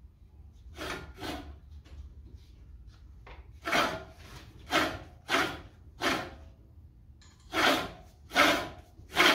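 Reel blades of a Silent Scott's Deluxe push reel mower scraping against the bed knife as the reel is turned by hand: about nine short separate scrapes, louder from about four seconds in. The scrape is the blades still rubbing on the bed knife, which the backlapping has not yet ground away.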